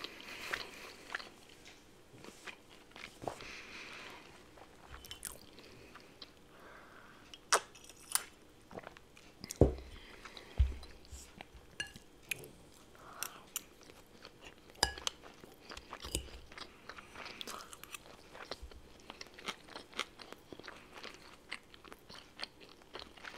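Close-miked chewing and crunching of food in a person's mouth, with irregular wet clicks and crackles. Two dull thumps come about halfway through.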